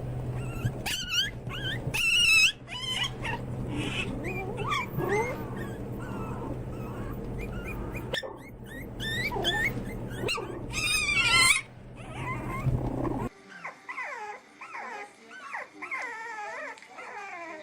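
Puppies whimpering and yelping in high, wavering cries over a steady low hum. About thirteen seconds in, the sound cuts to a quieter run of short rising-and-falling cries.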